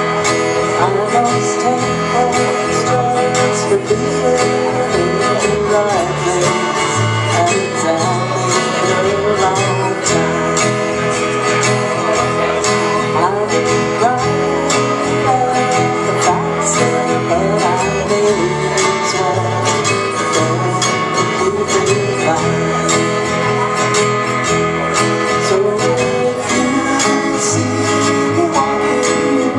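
Acoustic guitar strummed over an electric bass line, a live country-style song played by a guitar-and-bass duo.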